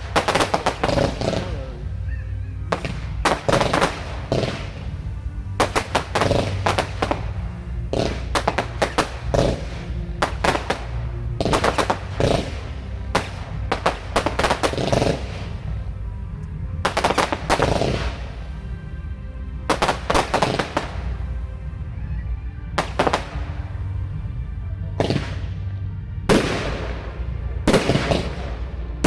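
Fireworks going off in rapid volleys of bangs and crackles, in bursts every second or two with brief gaps, over film-soundtrack music.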